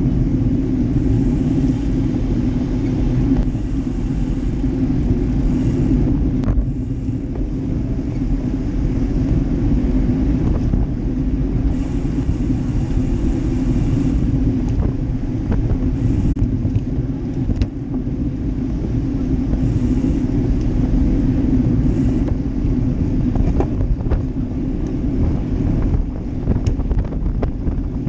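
Steady wind buffeting and road rumble on the microphone of a bike-mounted action camera riding at speed in a pack of road cyclists, with a few sharp clicks scattered through.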